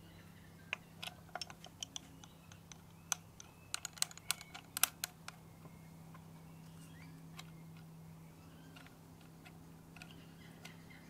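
Detachable pistol grip being fitted to the underside of a Keystone K-615 Super 8 film camera: a quick run of sharp clicks and taps during the first five seconds, then a few softer ones as it is secured.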